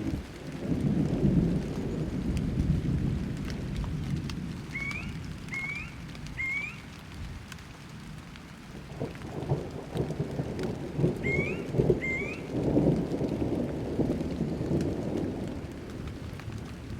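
Thunderstorm: low rolling thunder that rumbles in repeated swells over steady rain. Short rising chirps come through the storm: three about five seconds in and two more around eleven to twelve seconds.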